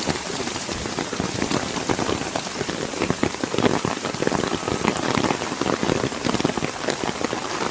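Rain falling steadily: a dense, even hiss of drops with many separate sharp drop hits.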